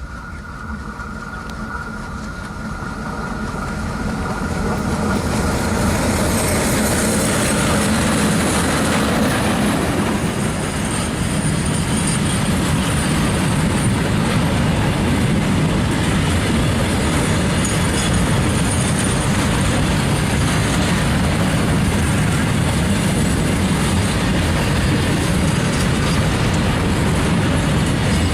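Freight train passing close by, growing louder over the first six seconds and then a steady heavy rumble of rolling wagons, with a thin high squeal of wheels on the rails above it.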